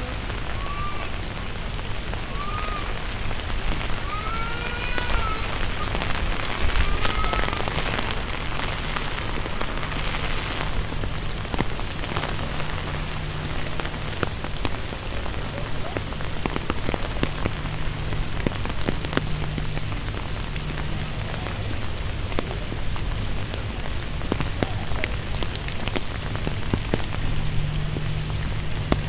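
Steady rain falling, with many close drops ticking irregularly. In the first seven seconds a bird gives a few short rising-and-falling calls.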